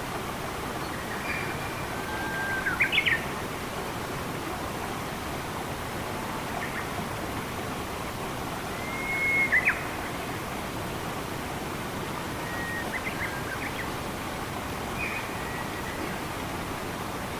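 Steady rush of flowing water with a songbird calling over it: a held whistle that ends in quick sharp upward notes, loudest about three and nine seconds in, with fainter short calls later.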